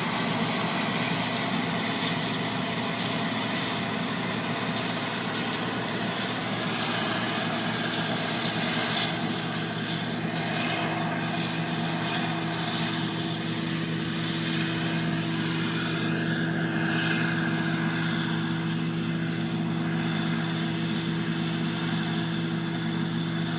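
Combine harvester running steadily in a soybean field, a continuous machine drone whose hum settles onto a steady pitch about ten seconds in.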